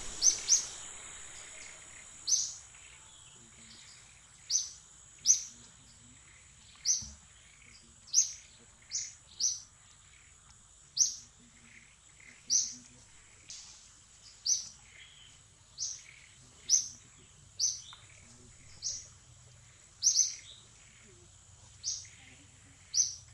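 A bird calling over and over with short, sharp, high-pitched chirps, one every second or two, over a faint steady high whine.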